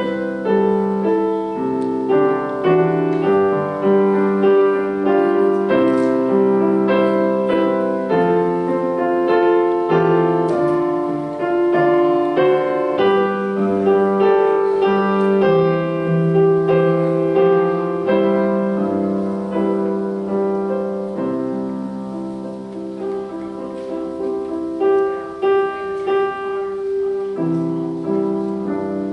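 Solo piano playing a slow, steady melody with chords.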